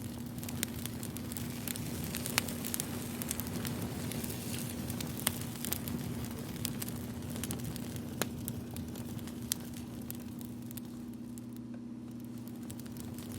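Wood fire crackling, with irregular sharp pops over a soft steady hiss and a faint steady low hum underneath.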